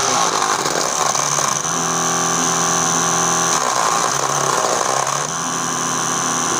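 Small brushed DC motor in a homemade chilli chopper, spinning a blade inside a plastic container. It runs with a steady high whine, and its lower hum shifts in pitch a few times as chillies are fed in.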